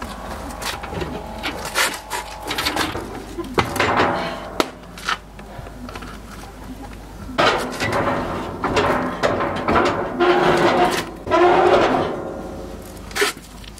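Knocks, clatter and scraping of wood and metal as a large bread loaf shaped like a figure is pushed on a long board into a brick wood-fired oven. Sharp knocks throughout, with longer rough scraping from about halfway on.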